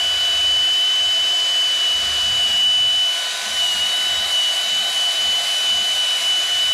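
Handheld power tool running steadily at one speed with a high, even whine.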